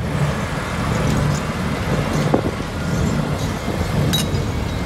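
Bucket-wheel excavator working: a steady heavy machinery rumble and drone, with a faint knock or two.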